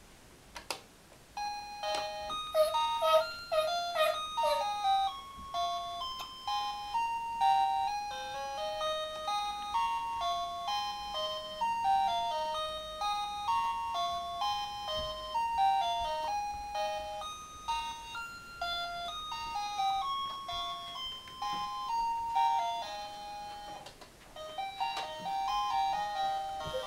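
Electronic children's toy playing a simple beeping tune, one note at a time. The tune starts about two seconds in and breaks off briefly near the end before going on.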